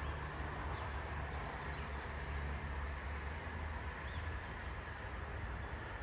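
Steady low outdoor rumble with a light hiss, and a few faint bird chirps.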